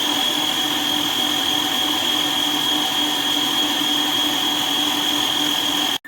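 COOKLEE 660 W electric stand mixer running at its top speed, 10, with a steady high-pitched squeal over its motor hum. It cuts off suddenly near the end.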